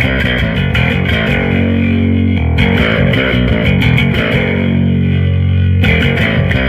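Custom electric bass guitar played through a bass cabinet with overdrive, both pickups (a humbucker and a Precision pickup) on together. It plays sustained notes that shift in pitch about two and a half seconds in and again near the end.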